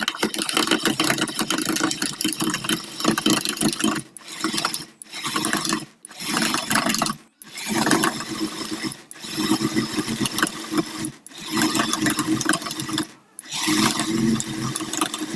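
Small electric motor of a homemade mixer grinder running in short bursts, switched on and off about every one to two seconds with brief stops between runs.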